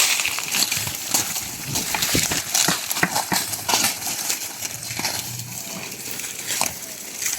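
Cows eating maicillo (sorghum) fodder: irregular crunching and rustling of the dry stalks.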